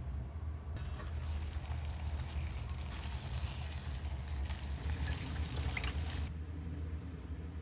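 Chicken frying in a pan, then water with kombu poured from a plastic jug into a steel saucepan. A steady hiss that cuts off sharply about six seconds in, over a constant low hum.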